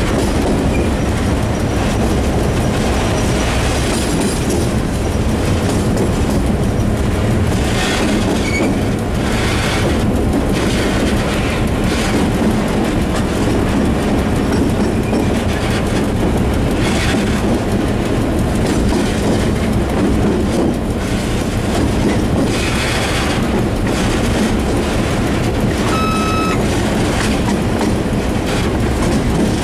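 Series 661 diesel locomotive running along the line, its engine a steady low drone through the open cab window, with the wheels clattering now and then over rail joints and points. A short high wheel squeal comes near the end.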